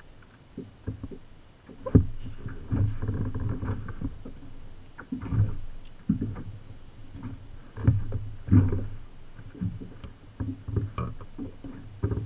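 Irregular low thumps and knocks on a plastic fishing kayak's hull, with water slapping against it and a few sharper clicks of gear being handled.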